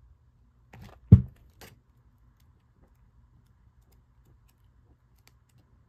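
Handling noise from a paperback workbook being moved and its pages turned: a few light clicks and rustles about a second in, with one sharp knock among them, then only faint ticks.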